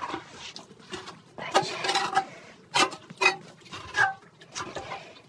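Irregular metallic clattering and scraping, a string of sharp knocks with a few brief ringing clanks, from drain-clearing tools working in a blocked drain.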